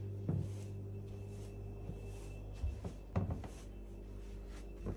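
A low steady hum with a few soft knocks and bumps: one about a third of a second in and a small cluster around three seconds in.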